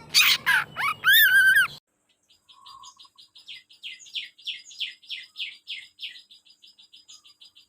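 Songbird masteran recording: loud ringing calls with sliding pitch that cut off abruptly about two seconds in. After a brief silence, a fast series of short, high chirps follows, about four or five a second, swelling then fading.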